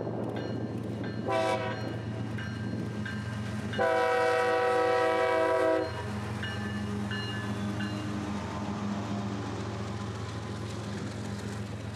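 A CSX freight locomotive passes close by and sounds its horn: a short toot about a second in, then a louder, steady blast of about two seconds. Under the horn, the diesel engine drones and the train's cars roll past.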